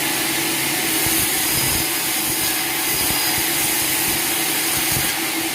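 Sawmill machinery running steadily: a constant mechanical drone and hiss with a held hum, and a few irregular low thuds in the middle.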